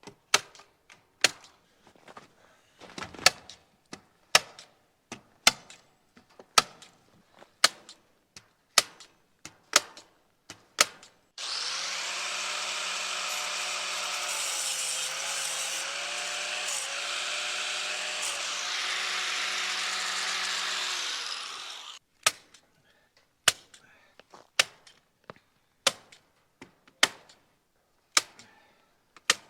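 Staple gun firing sharp single shots about once a second, fastening wire mesh. About eleven seconds in, a power tool starts and runs steadily for about ten seconds, then stops abruptly, and the staple shots go on at the same pace.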